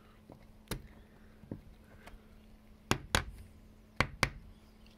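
Sharp clicks and knocks of a screwdriver and fingers working the clips on a Maxxair roof fan's plastic frame. There are about six of them, the loudest in two quick pairs about three and four seconds in.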